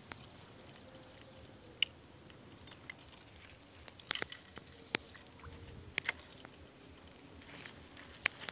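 Handling noise from a spinning rod and reel: about half a dozen sharp, isolated clicks and small knocks, with a quick cluster of them about four seconds in, over a faint steady background.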